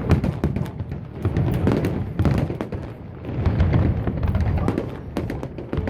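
A big fireworks display going off in rapid succession: many sharp bangs and crackles over a continuous low rumbling of shell bursts.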